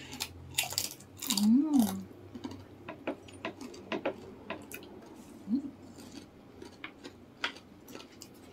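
Crunching and crackling of crispy fried chicken skin being bitten and chewed, the loudest crunches about a second in. A short hummed 'mm' sounds once about a second and a half in and briefly again midway.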